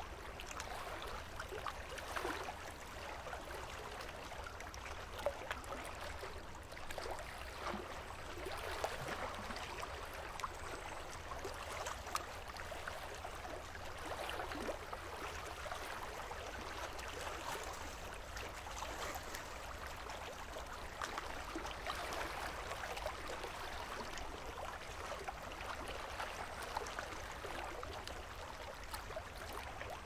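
Calm sea water lapping and gurgling among shoreline rocks: a steady wash of small waves dotted with little splashes and drips.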